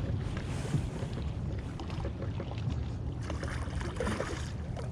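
Steady low rumble aboard a fishing boat on the water.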